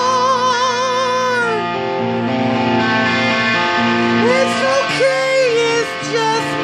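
Electric guitar played as a lead line: a long note with wide vibrato that slides away about a second and a half in, then several bent, sustained notes over lower held tones.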